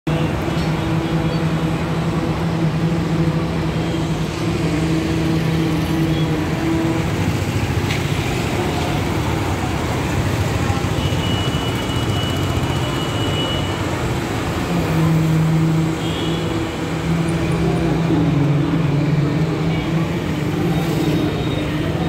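Road traffic with motorbikes and auto-rickshaws passing. Under it runs a steady engine hum that fades for several seconds in the middle and then comes back.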